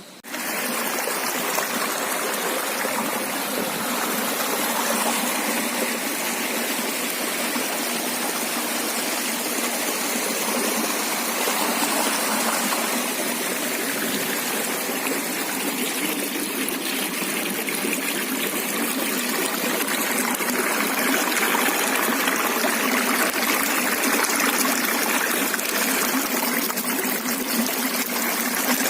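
River water rushing and splashing over rocks in a steady, loud, even wash that starts abruptly and holds throughout.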